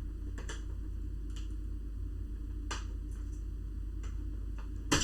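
Sharp plastic clicks as a laptop's plastic case is pried at and its clips hold, about five spread out, the loudest near the end, over a steady low hum.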